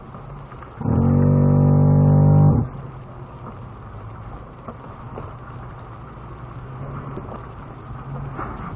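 A vehicle horn sounds once, a steady single-pitch blast of about two seconds starting about a second in, over the low hum of a running engine.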